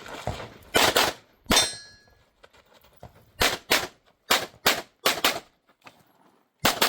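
Pistol shots fired in quick pairs on a USPSA stage, about ten shots in all. A steel target rings after one shot about a second and a half in.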